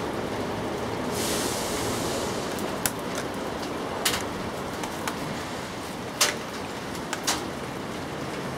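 Steady outdoor background hiss, with a brief louder hiss about a second in and about six sharp clicks scattered through the middle.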